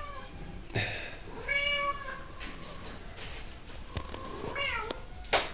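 A cat meowing three times, short meows a second or two apart, the middle one the clearest. A short burst of noise near the end.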